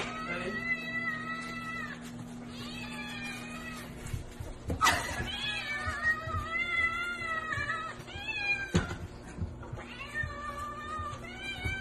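Domestic cat meowing over and over: about six long, drawn-out meows that bend up and down in pitch, the longest held for over two seconds about five seconds in.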